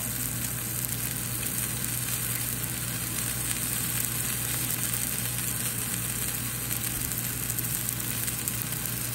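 Swordfish steak frying in hot oil in a cast-iron skillet, a steady sizzling hiss with a low hum underneath.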